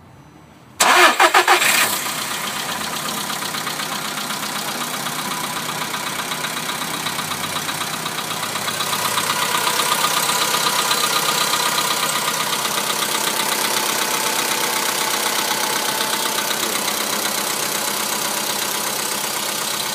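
Volkswagen Polo Sedan petrol engine started from cold: the starter cranks for about a second, the engine catches and settles into an idle with a fast, even clatter, growing louder about eight seconds in and then slowly easing. This is the cold-start knock under inspection, which the dealer put down to the hydraulic lifters, though the owner disagrees.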